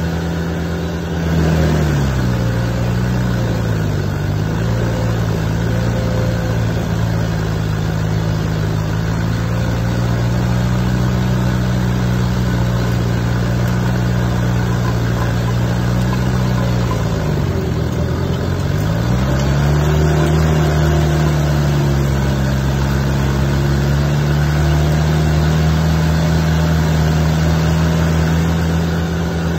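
Rayco RG100X stump grinder's engine running at full speed while its cutter wheel chews into an oak stump, over a steady grinding hiss. The engine pulls down under the load and recovers twice, about two seconds in and again about seventeen seconds in.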